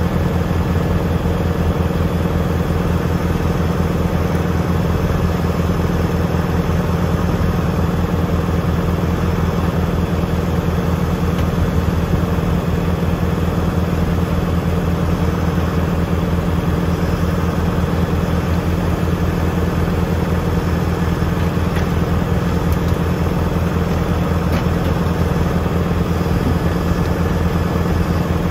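Farm tractor's diesel engine running steadily at a constant speed, with no change in pitch or load.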